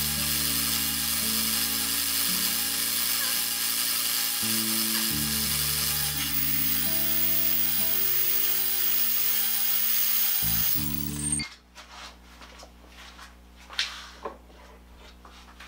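Background music of sustained chords that change every few seconds, cutting off suddenly about eleven seconds in. After that only faint scattered clicks and taps remain.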